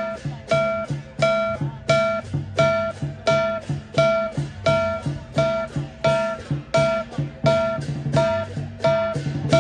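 Music: a plucked guitar playing a steady repeated figure, about two notes a second, over a low bass line.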